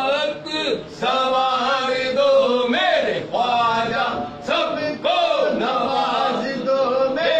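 A man's voice singing a naat, Urdu devotional verse in praise of the Prophet, in long melodic phrases that glide and hold notes with brief breaths between them.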